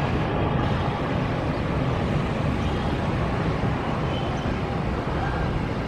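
Twin jet engines of an Airbus A321neo at takeoff power during its takeoff roll: a steady, even rumble, strongest in the low end.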